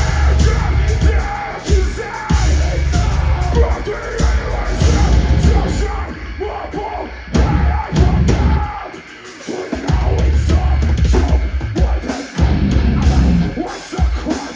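Live heavy band playing loud, with distorted guitars, heavy drums and yelled vocals. The bass drops out briefly about nine seconds in.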